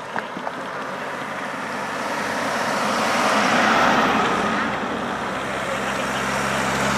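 Two cars driving past in turn, a Land Rover SUV and then a Ford people carrier: tyre and engine noise swells to its loudest about four seconds in, eases, then rises again near the end as the second car comes by with a low engine hum.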